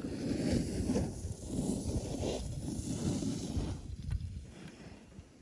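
Wind gusting over the microphone on an open mountaintop, a low rumbling rush that swells and eases every second or so, dropping off near the end.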